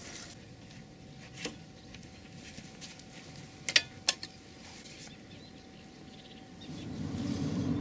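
A few sharp metal clicks, two loud ones close together near the middle, as a folding metal stool and rod stand are set out. Near the end a low rumble swells in.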